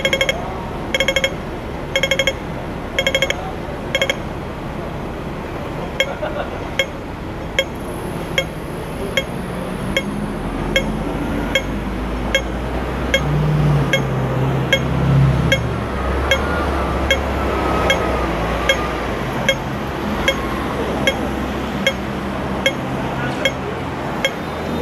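Regular electronic ticking at about one tick a second, typical of a Hong Kong pedestrian crossing's audible signal. For the first few seconds each tick is a short rapid rattle, and after that they are single ticks. From about halfway through, a low hum of a tram's motor rises under the ticks.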